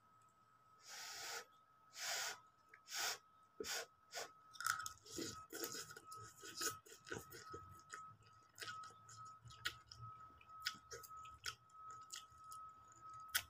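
A person eating instant noodles: a few quick slurps as the strands are sucked in, then wet chewing with lip smacks and small clicks at an irregular pace.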